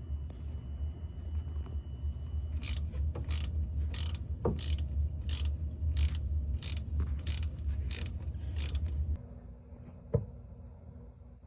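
Hand ratchet wrench cranked in about ten strokes, a little under two a second, over a steady low hum. The hum cuts off about nine seconds in, and a single knock follows.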